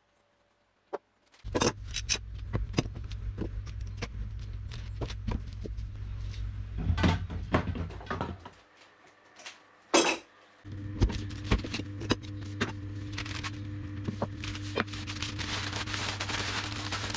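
Small plywood pieces knocking and clattering as they are handled and set down, over a steady low hum. After a short pause, sheets of newspaper rustling and crackling as they are crumpled up near the end.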